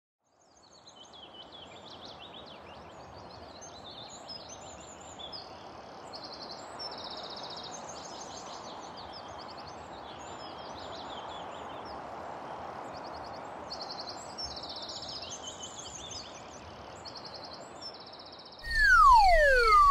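Birds chirping and trilling over a soft, steady rushing background, a nature ambience. About a second before the end a much louder cartoon sound effect cuts in, with descending whistle glides.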